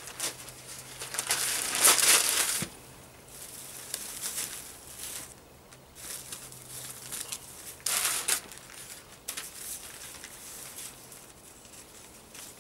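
Newspaper being crumpled and rustled by hand, loudest about one to two seconds in, with another short burst of rustling about eight seconds in.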